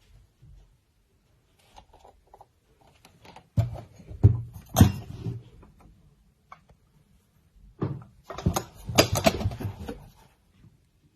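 Knocks and clatter of old mechanical alarm clocks being handled and set down on a hard surface, in two bursts: one a few seconds in and a busier one near the end.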